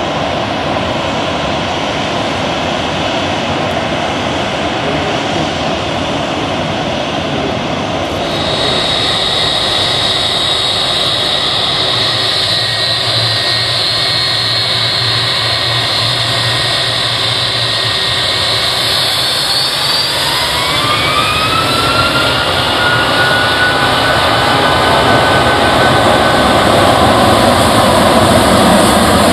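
Boeing 757-300's twin jet engines running at low power, with a steady fan whine coming in about a quarter of the way through. Past the halfway mark the engines spool up for take-off: a rising whine that levels off as the jet noise grows louder toward the end.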